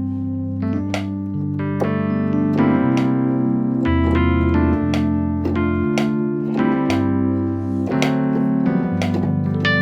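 Yamaha Montage M electric-piano preset "RDM Pad", an electric piano layered with a pad, played as a run of chords over held bass notes that change about every second.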